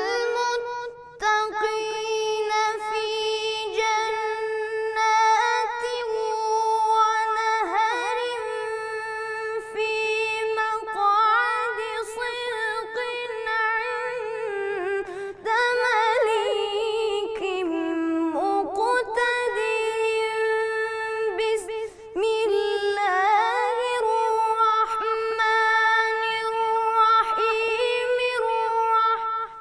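Unaccompanied melodic Quran recitation by a single high voice, holding long notes with ornamented turns and brief pauses for breath.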